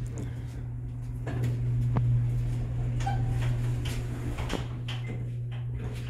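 Hydraulic elevator's pump motor running with a steady low hum as the car rises, getting louder about a second in, with a few clicks and knocks from the car.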